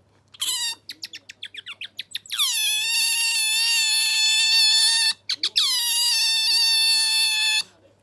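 Asian small-clawed otter squealing: a short call, then a fast rattling trill of about ten pulses a second, then two long, high, steady squeals that each slide down from a higher start, with a few quick chirps between them.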